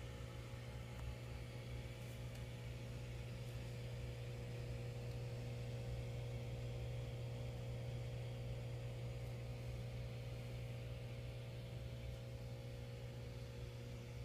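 Steady low hum of running reef-aquarium equipment, the protein skimmer's air pump and circulation pumps, over a soft even hiss of moving water and bubbles.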